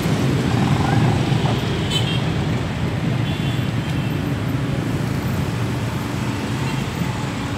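Road traffic: motorcycle and car engines running in a steady, dense rumble as vehicles cross over the railway tracks, easing slightly towards the end.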